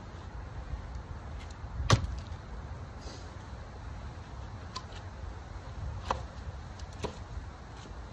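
Firewood being handled while splitting with an axe: one sharp wooden knock about two seconds in, then a few lighter knocks later on, over a steady low rumble.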